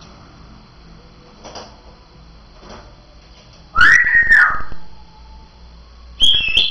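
African grey parrot whistling: a loud whistle that rises and holds for about a second, some four seconds in, then a shorter, higher call near the end.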